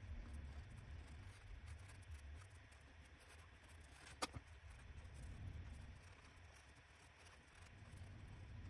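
Faint scratching of a coloured pencil drawing on paper, over a low rumble, with one sharp click about four seconds in.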